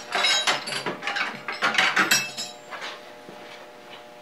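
Thin sheet-metal parts of a surface grinder's dust cover clinking and rattling as they are handled: a quick series of light metallic clinks with a brief ring over the first two and a half seconds, then quieter handling.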